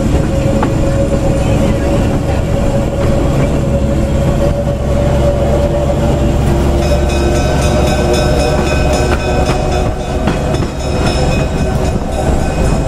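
Diesel excursion train rolling slowly along the track: a steady heavy rumble of wheels and locomotive with a droning tone. From about seven seconds in, several high steady tones ring out over it.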